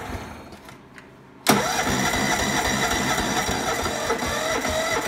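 Electric starter cranking a Honda HT-R3009 lawn tractor's engine: a crank starts abruptly about a second and a half in, runs evenly for about three and a half seconds and cuts off without the engine catching. The fuel had been left turned off.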